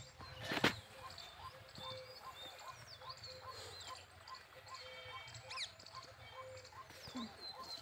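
Birds calling: scattered short chirps and whistles, with one bird repeating a single short note about three times a second. A sharp knock comes about half a second in.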